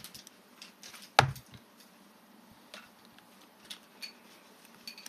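Paper craft pieces handled and pressed onto an album page: faint taps and light paper rustles, with one short, louder sound about a second in.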